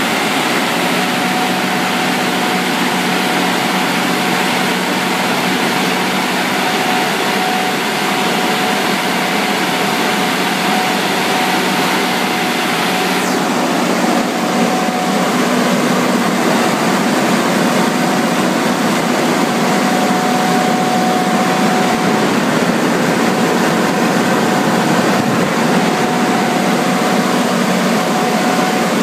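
Kohler 100 kW diesel generator set running at a steady speed: a constant engine drone with a steady hum running through it. The sound changes a little about halfway through.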